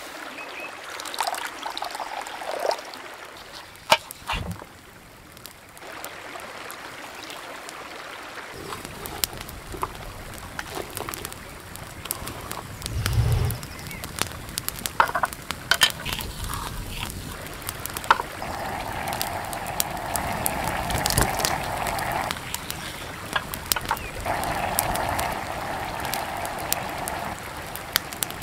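Hands at work with clay dishes and utensils by a campfire, making scattered small clicks and knocks over the steady rush of a stream and the fire. The background noise grows fuller about a third of the way through.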